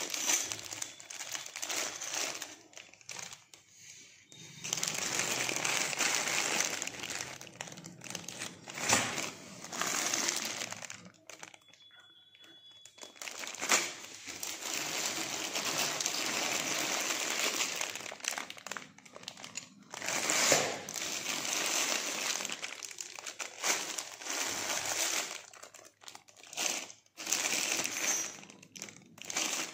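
Clear plastic bags of loose brass jewellery parts crinkling as a hand shifts and lifts them, in bouts broken by short pauses about 4 seconds in and around 12 seconds in.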